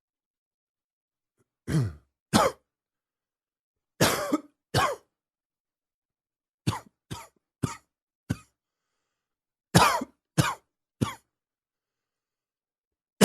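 A man's morning cough, as he gets his lungs going: short coughs in bouts of two, two, four and three, with pauses of a second or two between bouts, and another bout starting at the very end.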